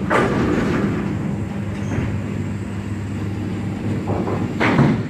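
Bowling-alley din: a sudden crash right at the start, then a steady low rumble of balls rolling on the lanes over a machinery hum, and another loud clatter near the end.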